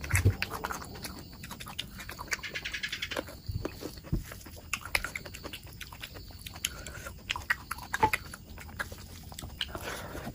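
Close-miked eating sounds: a person chewing and biting into oily mutton curry, with many quick wet smacks and clicks of the mouth.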